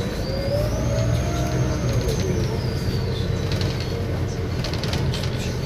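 Volvo B7RLE bus's diesel engine pulling under load, its turbocharger whistle rising to a high whine about half a second in, holding, then falling away around three seconds in. A lower whine from the engine and ZF automatic gearbox rises with it and drops about two and a half seconds in, over a steady rumble, with a few light rattles near the end.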